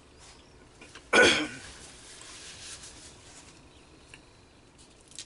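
A man's single loud cough about a second in, followed by a fainter breathy exhale.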